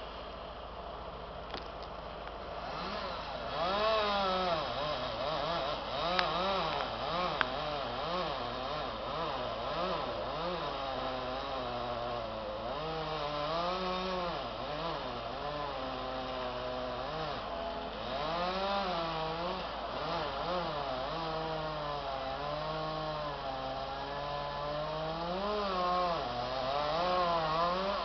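Two-stroke chainsaw revving up and down over and over as it cuts, its pitch rising and falling every second or two, picking up about three seconds in.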